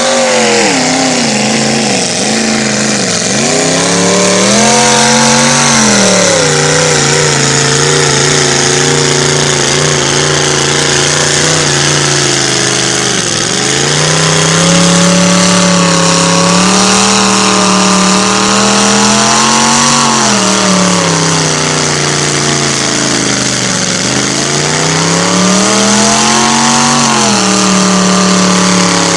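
Mud bogger's engine revving hard as the big-tired car-bodied truck churns through deep mud. The revs rise, hold high, then drop back several times, with sharp dips about a third of the way through and again near the end.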